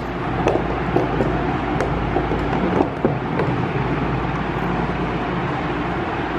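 A few clicks and knocks in the first three seconds as the handheld camera is moved and set down, over a steady whooshing hum.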